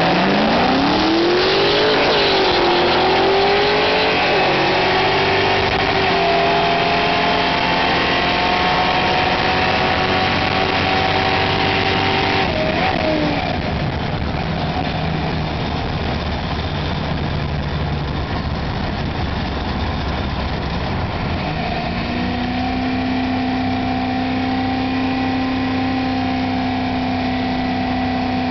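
Chevrolet Nova's engine, heard from inside the car, pulling hard from a standing launch: the note climbs steeply, dips briefly about two seconds in, then climbs again and holds high. About twelve seconds in it breaks off as the driver backs off. From about twenty-two seconds it settles into a steady cruising drone.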